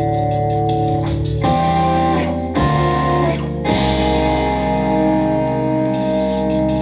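Instrumental music led by guitar: held, ringing notes over a low sustained bass, the chord changing three times in the middle.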